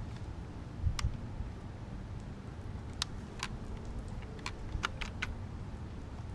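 Hand-handling noise: about seven sharp clicks and taps of small hard parts being worked, spaced irregularly, over a low steady rumble.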